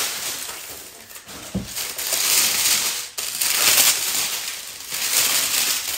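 Tissue paper rustling and crinkling as it is pulled out of a gift box, in several loud swells of noise.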